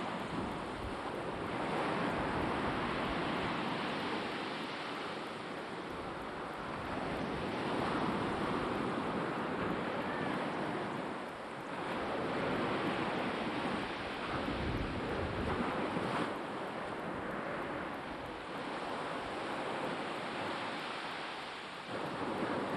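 Black Sea surf: waves washing onto the shore, swelling and easing every few seconds, with wind buffeting the microphone.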